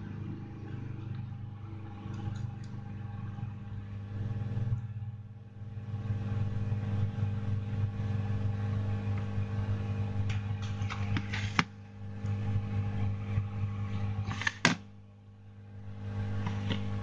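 A steady low hum, like a motor or fan running, with two sharp clicks a few seconds apart in the second half.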